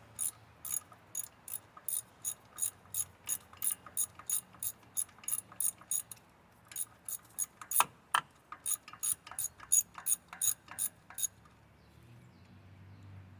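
Hand socket ratchet clicking steadily, about three to four clicks a second, as an engine's water pump bolts are being loosened. A short pause comes around six seconds, then two louder knocks, and the clicking stops about eleven seconds in.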